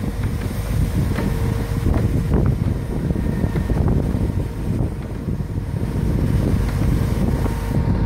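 Wind buffeting the microphone, with a steady motor hum underneath from the mobile crane as it lowers the sailing yacht in its slings.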